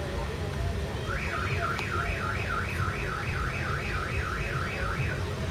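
An electronic alarm warbling, its pitch sweeping up and down about three times a second for roughly four seconds, starting about a second in, over a low steady rumble.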